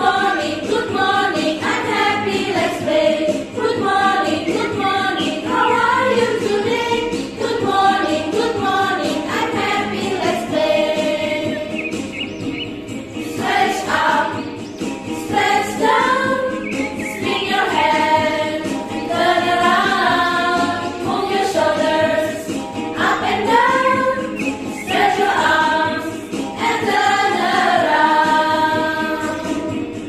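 A group of voices singing a song together over backing music.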